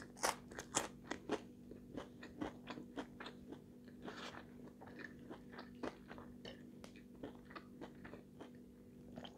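Close-up mouth sounds of someone chewing french fries: a run of crisp crunches, loudest in the first second or so, then softer, quicker chewing. A faint steady hum sits underneath.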